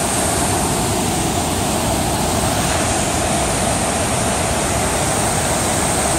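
Large waterfall rushing: a loud, steady noise of falling water crashing into a rocky gorge.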